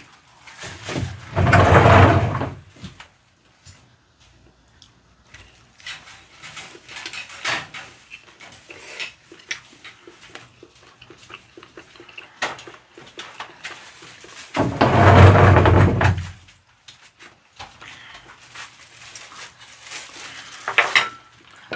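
Close-miked eating of sauced fried chicken: chewing and mouth sounds with light chopstick and dish taps. There are two louder voice-like sounds of a second or two each, one about a second in and one about two-thirds through.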